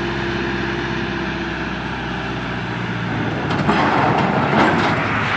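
Engine of a tractor-mounted crane running steadily as the crane lifts an overturned box truck. About three and a half seconds in, the sound grows louder and rougher.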